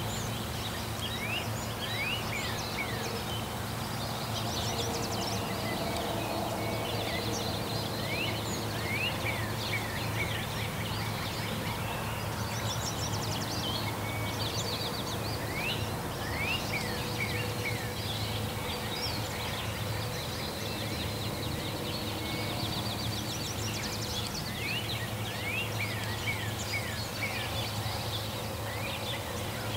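Birds calling in the open: short, sharp downward chirps in little runs of two to four, repeated every few seconds, with higher trills among them, over a steady low background rumble.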